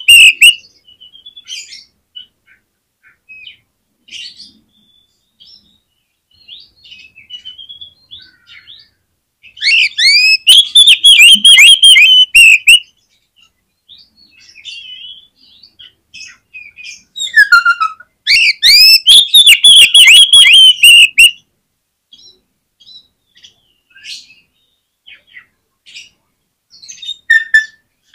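Oriental magpie-robin (kacer) singing: quiet, varied twittering notes, broken twice by loud runs of rapid, repeated down-slurred whistles lasting a few seconds each, about ten seconds in and again near eighteen seconds.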